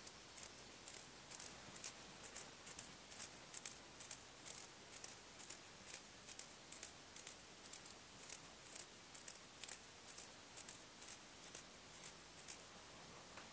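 A finger drawn again and again across the paint-loaded bristles of a toothbrush, spattering watercolour paint: short, quiet bristly flicks, about two to three a second, that stop shortly before the end.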